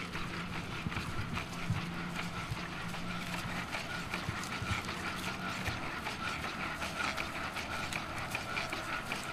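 Boston Dynamics Spot robot dog walking on grass: a steady high whine from its leg motors, with quick ticks and taps of its feet. A low hum sounds under it for the first few seconds.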